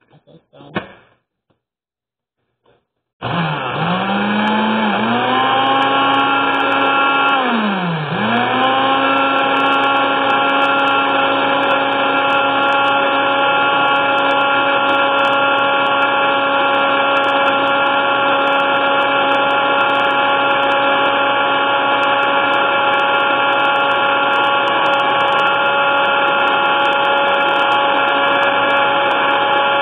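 Countertop blender switched on about three seconds in and running steadily as it blends. Its motor pitch sags and recovers twice in the first few seconds, then holds steady.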